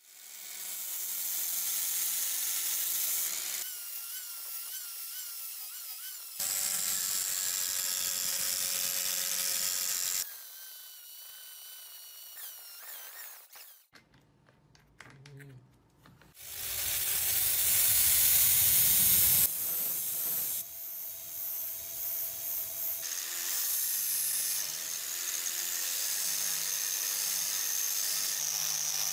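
Electric angle grinder with a sanding disc working the rusty steel head of a hand adze: a steady motor whine over a grinding hiss. The pitch dips and wavers as the disc bears on the metal, and the sound cuts off and restarts abruptly several times.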